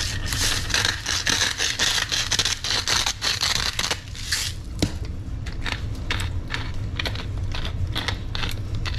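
Hand-twisted spice grinders cracking salt and pepper over fish: a dense, gritty grinding for the first few seconds, then quick clicking strokes, several a second, as the mill is turned back and forth.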